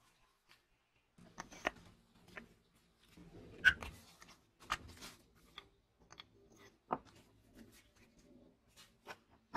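Irregular clicks and short scrapes of a white plastic insert being worked and pushed out of a rusty metal roller sleeve from a vintage tape gun, with a screwdriver, starting about a second in.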